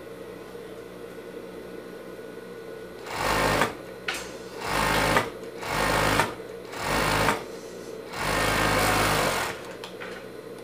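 Industrial overlock (serger) machine running in five short bursts as a sleeve seam is sewn on knit fabric, the last burst the longest. A steady low hum runs between the bursts.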